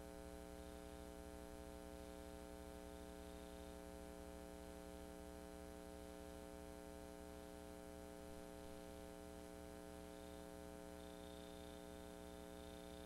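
Near silence filled by a steady, very quiet electrical hum with many evenly spaced overtones. No sound of the parade vehicles is heard.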